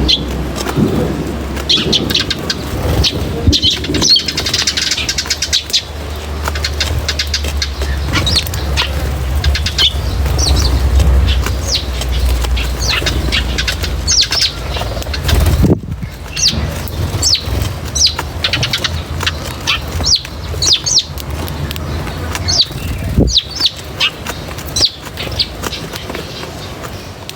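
Small birds chirping over and over, many short high calls that slide downward in pitch. A low rumble runs under the first half and fades about halfway through.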